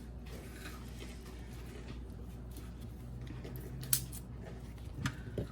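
Steady low room hum with a few short, sharp clicks and knocks of handling, the clearest about four seconds in and two more near the end.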